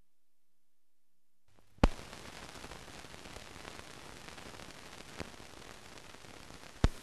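Surface noise of a 1948 newsreel film soundtrack: near silence at first, then a steady hiss with fine crackle sets in about a second and a half in. Two loud sharp pops come, one just after the hiss starts and one near the end, with a fainter click between them.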